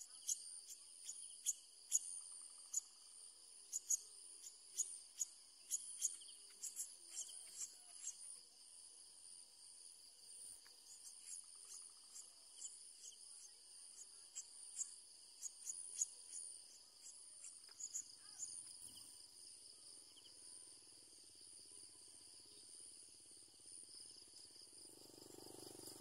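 Steady high trilling of insects, overlaid by quick runs of short, sharp high chirps from bulbul nestlings begging at the nest. The chirps come thickly in the first eight seconds and again briefly after the middle.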